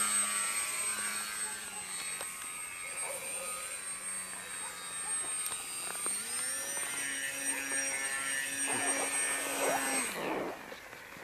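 EPP foam radio-controlled model airplane's motor and propeller droning overhead, the pitch sinking slowly, then jumping up about six seconds in and holding. A thin high whine runs with it, and both stop about ten seconds in as the motor cuts.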